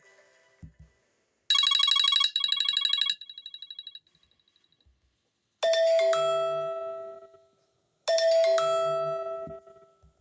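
iPhone XR alert tones playing one after another: a short buzzy, rapidly pulsing tone that repeats more and more faintly, then the same ringing chime twice, about two and a half seconds apart, each dying away.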